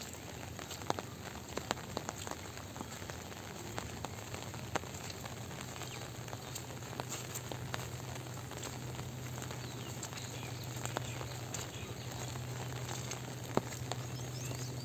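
Light rain falling: a steady patter with scattered sharper drip clicks. A low steady hum joins about five seconds in.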